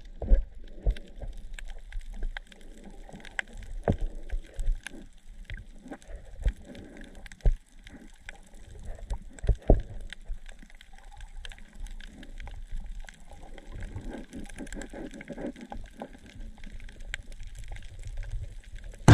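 Underwater sound around a snorkeler's camera: water moving and gurgling, with many scattered sharp clicks and knocks at irregular intervals.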